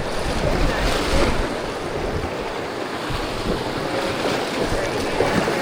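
Rushing whitewater of a river rapid, a steady wash of water noise, with wind buffeting the microphone.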